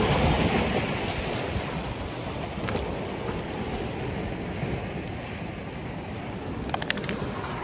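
Sea waves washing against a rocky shore, with wind buffeting the microphone; the wash is loudest at the start and eases off. A few sharp clicks come near the end.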